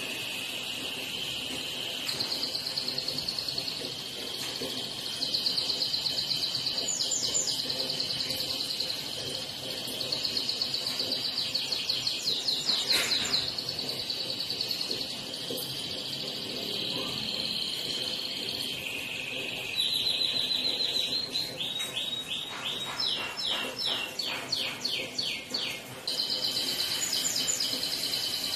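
White-rumped shama singing after its bath: a continuous stream of rapid high trills and chattering notes, with a fast run of sharp repeated notes about two-thirds of the way through.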